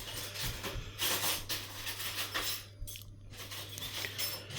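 Irregular clinks, knocks and rustling of hard objects being handled, over a steady low hum.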